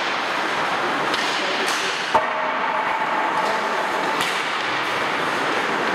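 Ice-hockey practice on a rink: a steady hiss of skates on the ice with several sharp clacks of sticks and pucks. The loudest clack comes about two seconds in and is followed by a short ringing.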